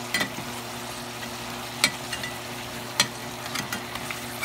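Pork chops and onions in soy-lemon sauce sizzling in a frying pan, with a utensil knocking and scraping against the pan a few times as they are turned. The sharpest knocks come about two and three seconds in.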